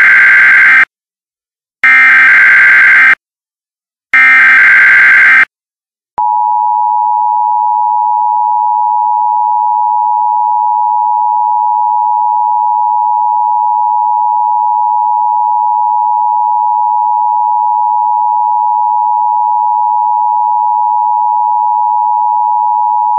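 Emergency Alert System header: three bursts of screechy digital data tones about a second long each, the first already under way. About six seconds in, the EAS two-tone attention signal (853 and 960 Hz) starts as one steady, loud tone and holds, marking the start of an emergency alert message.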